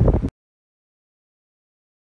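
Wind buffeting the microphone with clicking from a signal lamp's shutter lever, cut off abruptly about a third of a second in, followed by total silence.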